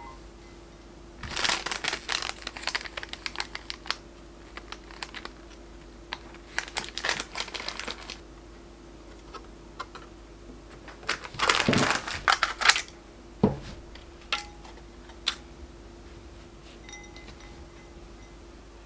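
Dry sheet gelatin crinkling and crackling as it is handled and laid into a glass bowl of ice water, in three short bursts with a few single clicks after. A faint steady hum runs underneath.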